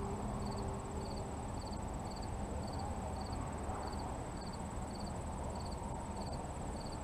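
A cricket chirping steadily, about two short chirps a second, over a constant low outdoor rumble.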